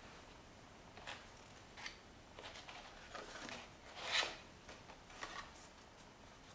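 Sheets of painted paper being picked up and handled on a tabletop: a few short, quiet rustles and light taps, the loudest about four seconds in.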